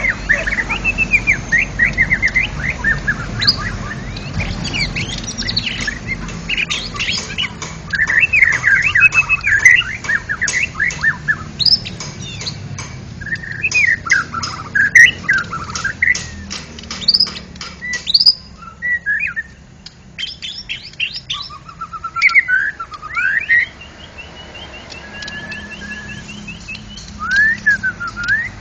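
White-rumped shama singing a loud, varied song of sweeping whistled phrases mixed with rapid sharp clicking notes, with quick repeated trills near the end.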